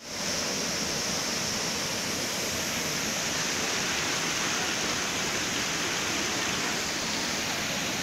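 Steady rushing of a waterfall pouring over a small masonry dam wall into a pool.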